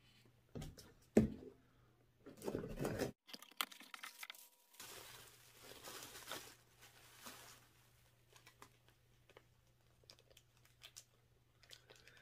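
A small cardboard mailing box being handled and torn open, with a couple of sharp knocks and a brief tearing sound, then bubble wrap and a plastic bag crinkling as the contents are unwrapped.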